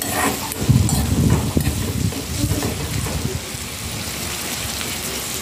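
A tempering of ginger-garlic paste, curry leaves and dried chillies sizzling in hot coconut oil in a small metal pan as a steady crackling hiss. It is heavier and busier during the first three seconds, while it is stirred.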